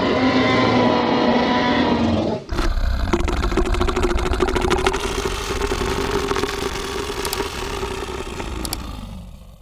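Tyrannosaurus rex roar sound effect: a first rough roar lasting about two and a half seconds breaks off sharply. A second, longer roar with a steady low tone follows and slowly fades away toward the end.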